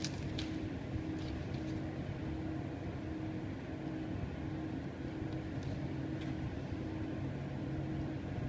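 Steady low machine hum with two constant tones over a rushing noise, with a few faint clicks over it.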